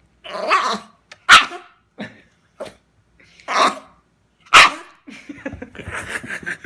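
Dog giving a protest cough, the fake cough he puts on when he doesn't like something, in four harsh bursts. The second and fourth are the sharpest and loudest. A quieter run of rapid, stuttering sounds follows near the end.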